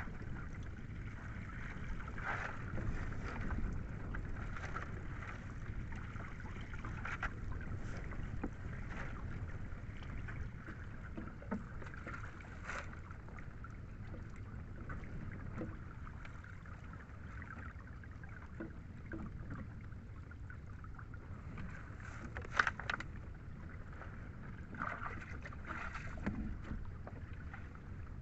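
Wind on the microphone and water around a small boat, with scattered splashes and rustles as wet cottonii seaweed is hauled from the sea and piled aboard. One louder, sharp sound comes about three-quarters of the way through.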